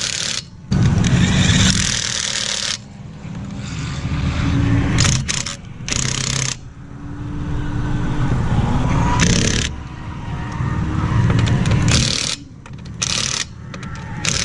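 Cordless impact wrench with a socket running in repeated bursts on a car's wheel nuts, hammering as it turns them, with short pauses between bursts.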